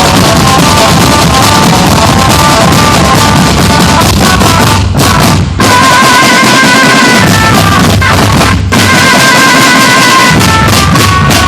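A drum band, a marching percussion band, playing loud: drums beat steadily under a stepping melody of held notes, with short breaks about five and a half and nine seconds in.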